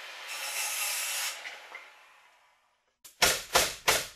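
A power saw cutting through wood, a steady hiss that fades away after about a second and a half. Then three loud hammer blows in quick succession.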